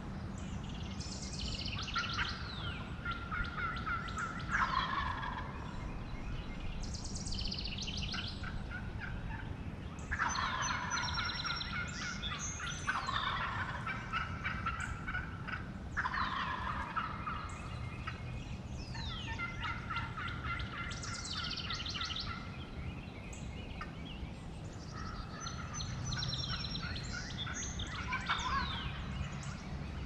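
Wild turkeys gobbling and answering turkey calls in repeated bursts every few seconds, each burst a rapid rattling run of notes.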